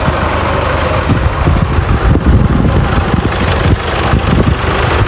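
New Holland farm tractor's diesel engine running steadily as the tractor drives across a field pulling a rear blade.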